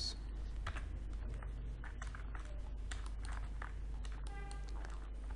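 Scattered key clicks on a computer keyboard over a steady low electrical hum, with a brief faint tone about four seconds in.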